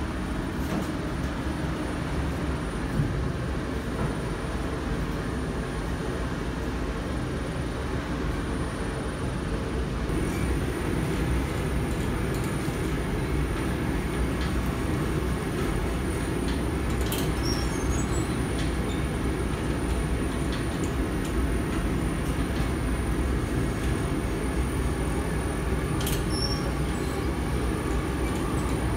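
Bakery dough machinery running steadily, a little louder from about ten seconds in.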